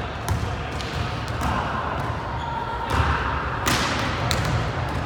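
Volleyball being struck and bouncing in a gymnasium: several sharp smacks, the loudest about three-quarters of the way through, over a background murmur of voices in the echoing hall.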